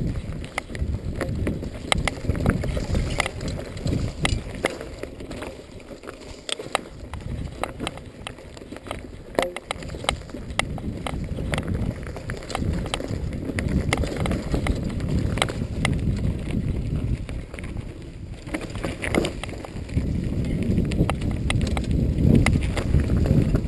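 Norco Storm hardtail mountain bike riding down a rough dirt singletrack: Continental Mountain King tyres rolling over dirt and dry grass, with frequent rattling clicks from the bike and wind rumbling on the microphone.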